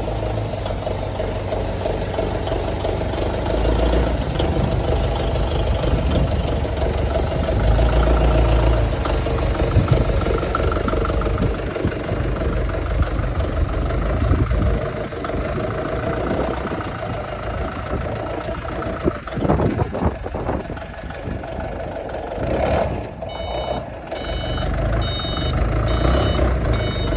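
A vehicle engine running with a low rumble during unloading of heavy freight. Near the end a reversing alarm starts, giving a steady series of short, high beeps.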